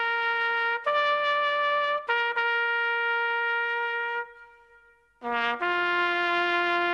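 Solo bugle call played as a memorial lament, in long held notes. A higher note comes about a second in, a long note fades out four to five seconds in, and after a brief silence the call starts again on a low note.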